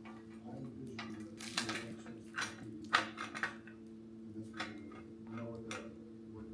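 Scattered light clicks and knocks of hard parts being handled: a 7-inch LED headlight being turned and pressed against its mounting ring while trying to seat the notches on its back. The sharpest knock comes about three seconds in, over a steady low hum.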